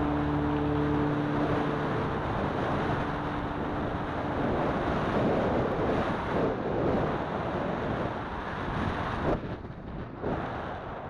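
Wind rushing over an action camera's microphone while riding a bicycle, a steady noisy rush that dips briefly near the end. The tail of background music fades out in the first few seconds.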